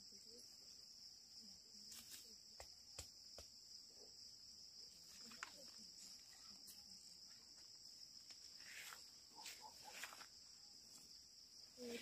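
Faint, steady, high-pitched insect chorus, with a few soft clicks and knocks.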